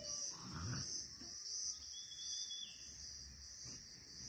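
Insects chirring steadily in a high, pulsing drone, with a soft low bump about half a second in.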